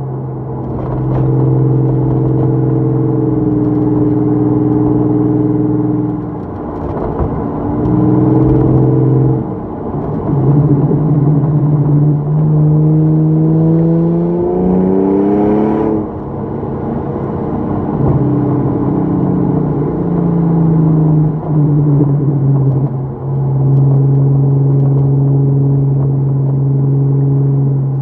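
Ford Falcon FG's engine and exhaust under way, holding steady revs with a few dips and steps in pitch as gears change. About halfway through it pulls with a rising note for some four seconds, then drops sharply at an upshift and settles back to a steady drone.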